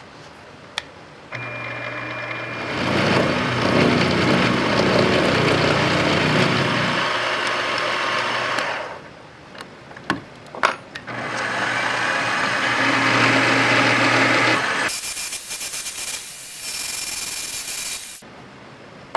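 Benchtop mill-drill motor starting up and an end mill cutting into a metal rod held in a vise. After a pause with a few sharp clicks, the machine runs again as a twist drill bores into the rod, stopping about a second before the end.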